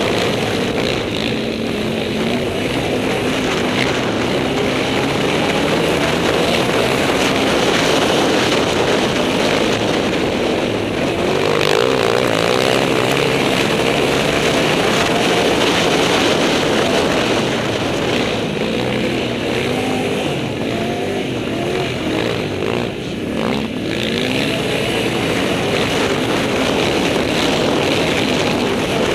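Can-Am Outlander 800 XXC quad's V-twin engine running hard under load, its pitch rising and falling repeatedly as the throttle is worked, with a brief drop in revs about 23 seconds in.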